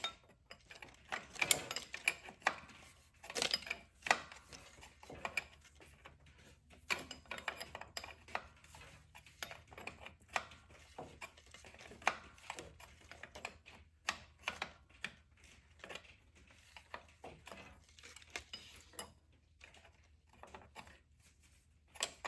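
A wrench working a fuel injection line nut tight onto a tractor's injection pump: irregular sharp metal clicks and taps, some close together, a few louder.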